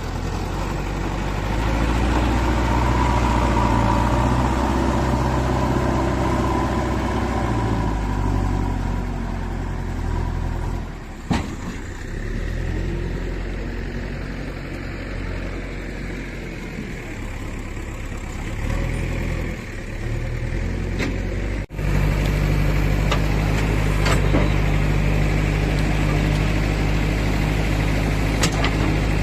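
JCB 3DX backhoe loader's diesel engine running as the machine works, its note rising and falling with the load. The sound dips briefly about eleven seconds in and breaks off sharply about two-thirds of the way through, then settles into a steadier engine note.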